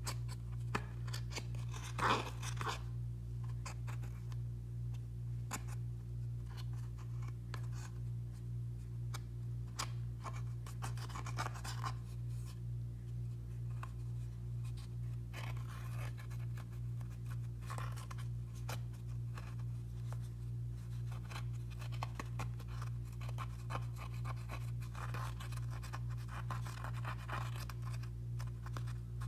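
Plastic spatula scraping and digging powder eyeshadow out of its palette pans: irregular, scratchy, crumbly scrapes, the loudest about two seconds in, over a steady low hum.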